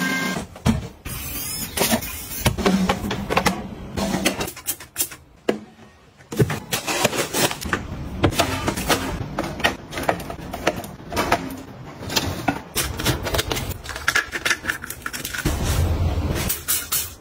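A rapid run of close-up household handling sounds: many small clicks, taps and rustles of plastic, wire and fabric.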